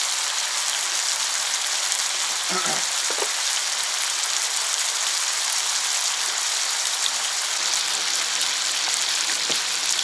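Steady, even hiss with no rhythm, such as sizzling or rain. A faint short voice comes about two and a half seconds in.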